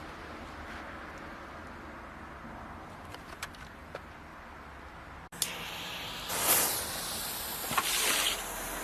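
Volcano-type fountain firework spraying sparks with a steady hiss, which swells sharply twice near the end. Before that the hiss is lower, with a few faint crackles, and it breaks off abruptly about five seconds in.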